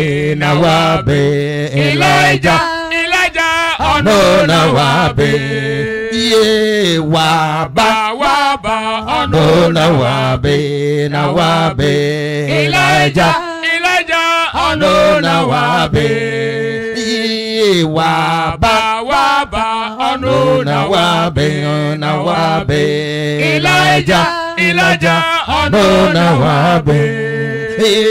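Voices singing a repetitive chant into microphones, with held notes in short repeated phrases.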